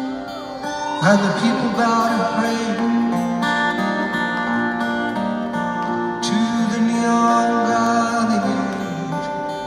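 Live music: acoustic guitar playing with a singing voice over it.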